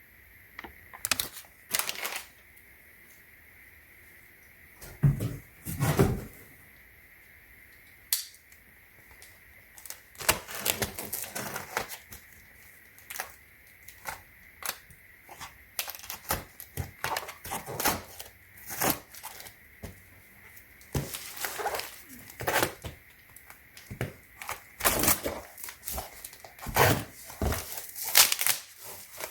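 Unboxing handling noise: irregular clicks, taps and rustles of packaging and a hardshell suitcase being moved about, sparse at first and busier from about ten seconds in.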